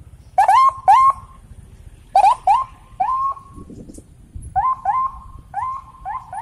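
Police vehicle siren giving short rising whoops, mostly in pairs, about ten in all, each sweeping up and holding briefly. The low running of motorcycle and car engines lies underneath.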